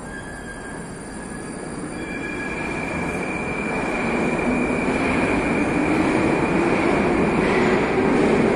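Moscow metro train running in the station, growing steadily louder, with a steady high wheel squeal from about two seconds in and a motor whine rising in pitch over a rumble.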